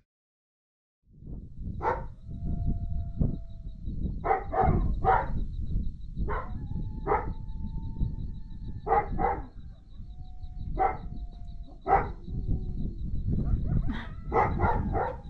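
A dog barking in short, scattered barks, some in quick pairs, beginning about a second in, over steady wind noise on the microphone.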